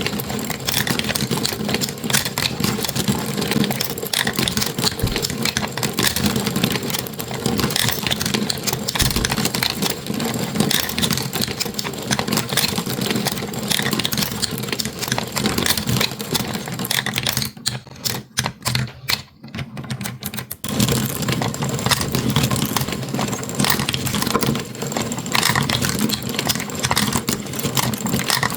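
Marbles rolling and clattering down a marble run track, a dense stream of small rapid clicks and rattles. A little past the middle the clatter thins to a few scattered clicks for about three seconds, then resumes.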